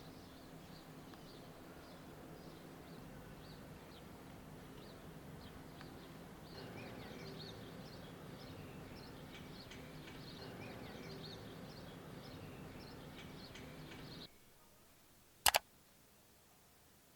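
Small birds chirping and singing over a steady low background hum, which cut off abruptly about 14 seconds in to faint room tone. A sharp double click about a second and a half later.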